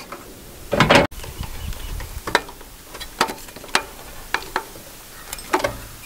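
Scattered light clicks and taps of a screwdriver and stiff copper wires handled against an electrical outlet box while the conductors are fitted to the receptacle's terminals. A brief louder noise about a second in cuts off abruptly.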